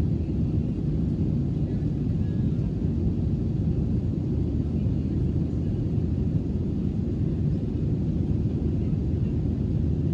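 Steady low rumble of an airliner cabin in flight.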